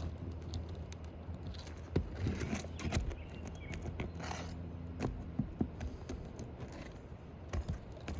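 Scattered clicks and scrapes of a hand tool working under asphalt shingles to pull roofing nails, over a steady low hum.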